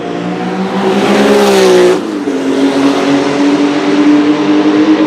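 Porsche 935 race car's turbocharged flat-six accelerating past. Its note climbs and grows louder, then drops sharply in pitch as the car goes by about two seconds in, and carries on at a lower, steady note.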